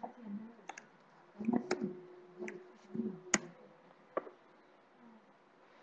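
Faint, choppy snatches of voice and several sharp clicks that cut in and out over an online-meeting audio line.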